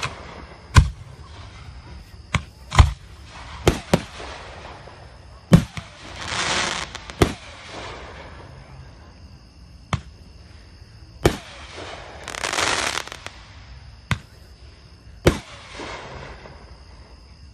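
Aerial fireworks shells bursting: about ten sharp bangs at irregular intervals, some in quick pairs, with two longer hissing rushes about a second long, one near the middle and one later on.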